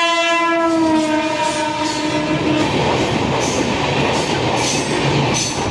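An electric locomotive's horn sounds one long blast, its pitch sliding slightly down, as a passenger train rolls past. The horn stops a little under three seconds in. The rumble of the coaches carries on, with the clatter of wheels over rail joints about twice a second.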